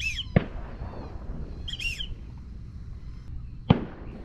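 Two shotgun shots from other duck hunters, one about half a second in and one near the end, each a sharp crack with a short echoing tail. Two short bird calls come in between.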